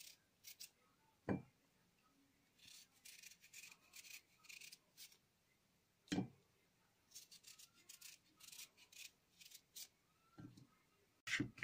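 Quiet knife work on a cucumber over a wooden cutting board as it is sliced into thin slabs: short faint slicing scrapes, with a sharp knock about a second in and another about six seconds in.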